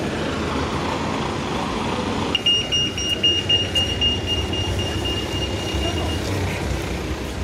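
An electronic beeper sounds a high, rapidly pulsed tone for about four seconds, starting a couple of seconds in, over a steady rumble of road traffic.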